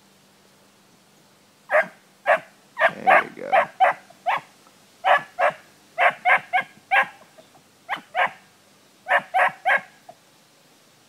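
Hunting dog barking on a rabbit's trail: about twenty short, sharp barks in quick irregular runs, starting about two seconds in and stopping about ten seconds in.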